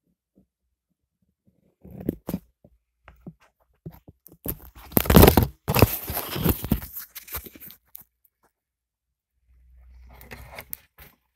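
Handling noise at a workbench: a few small clicks and knocks, then a loud scraping rustle for about two and a half seconds in the middle, and a fainter rustle near the end.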